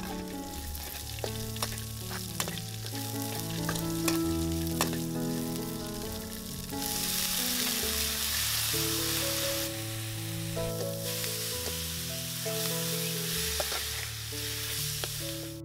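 Red chillies and garlic stir-frying in oil in a metal wok, sizzling steadily, with a metal spatula clicking and scraping against the pan. The sizzle grows louder about seven seconds in. Soft background music with held notes plays underneath.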